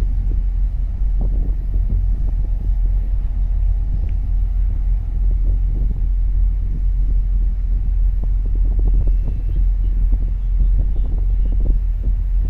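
Wind buffeting the microphone: a steady low rumble with irregular gusts.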